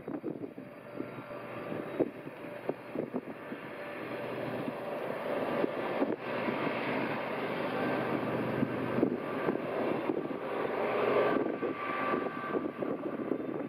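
Diesel-electric locomotives of a BNSF freight train, led by a GE ES44C4, working uphill on a mountain grade: a steady engine drone with a faint whine that grows louder over the first ten seconds as the locomotives come past.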